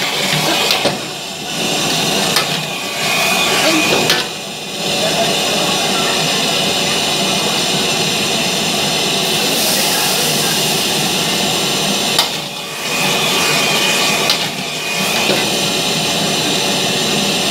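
Commercial wok burner's high gas flame running steadily, dipping briefly about four times, with a metal ladle knocking and scraping in the iron wok a few times.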